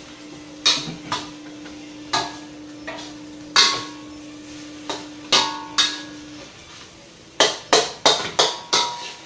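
Spatula clanging and scraping against a stainless steel wok while stir-frying cooked rice: sharp knocks at uneven intervals, then a quick run of five or six strikes near the end.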